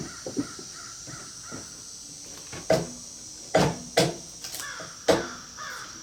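Irregular, spaced blows of a tool striking wood, each a sharp knock with a short ring: two quick ones at the start, then four more over the next few seconds. Crows caw faintly in the background between the blows.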